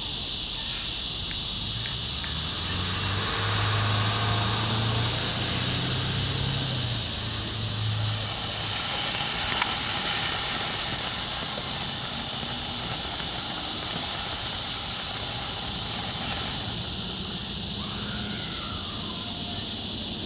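Small fountain firework set off in a kettle grill, spraying sparks with a steady hiss and one sharp pop about ten seconds in. A low hum runs from about three to eight seconds in. Crickets chirr steadily throughout.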